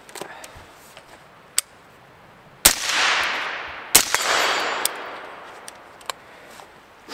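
Two rifle shots from an AR-15-style rifle fitted with a suppressor, about a second and a quarter apart. Each shot is followed by a long echo that dies away over about a second. A few faint clicks come before the shots.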